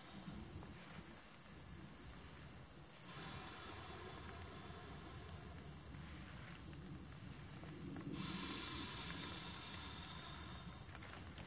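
Insects singing: a steady, unbroken high-pitched trill, with a fainter lower chorus that starts and stops every few seconds.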